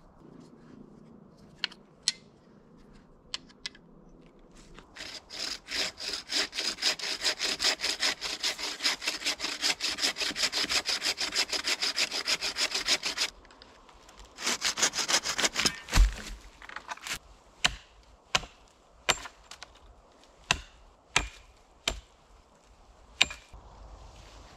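Hand saw cutting through wood with fast, even back-and-forth strokes for about eight seconds, then a second short burst of sawing. A dull thud follows, then a series of separate sharp knocks of wood.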